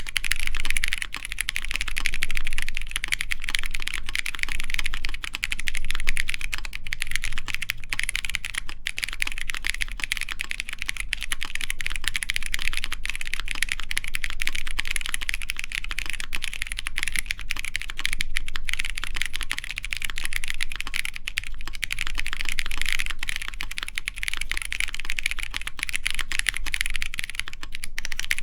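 Continuous steady typing on a mechanical keyboard, a Matrix Lab ME SE with stock Kailh Polia tactile switches on a full aluminium plate with GMK keycaps. The keystrokes are a dense, unbroken run of clacks.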